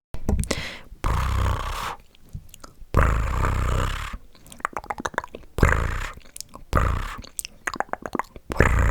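Close-miked ASMR mouth sounds and tapping on Hello Kitty Uno cards: many quick wet clicks and taps between rustly stretches about a second long.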